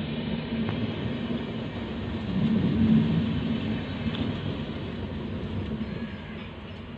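Train running on the rails, a steady low rumble that swells briefly midway and then fades toward the end as the train moves off.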